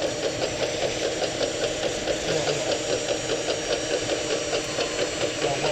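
Custom RC trommel screen running steadily, its small motor turning with an even rattle of about five beats a second.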